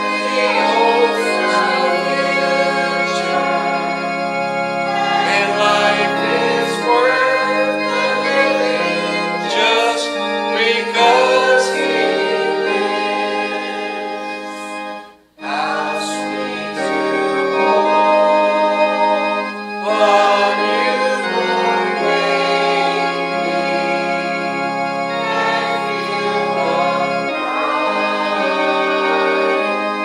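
Congregation singing a hymn in unison with sustained organ accompaniment, held notes over a steady low bass line. The music breaks off briefly about halfway through, between phrases or verses, then resumes.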